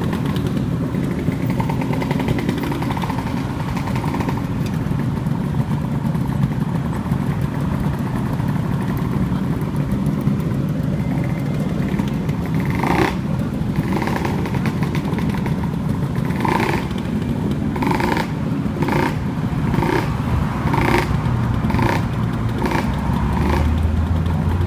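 Small motorcycles and scooters idling together at a junction over a steady city traffic rumble. From about halfway, a short sharp sound repeats roughly once a second, and near the end a deep engine drone grows louder.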